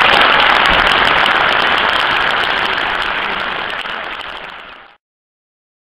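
Crowd applause, many hands clapping densely, fading away steadily until it stops about five seconds in.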